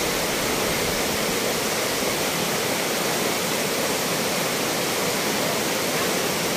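Steady rush of white water pouring over boulders in a river cascade at a waterfall.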